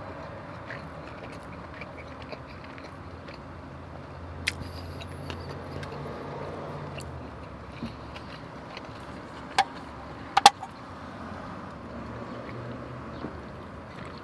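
Eating taco sounds inside a car: soft chewing and small crackles over a low steady rumble, with a few sharp clicks, the loudest pair about ten seconds in.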